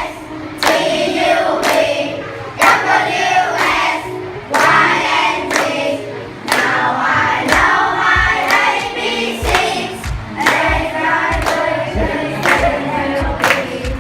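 Music with a group of voices singing together and a strong beat about once a second.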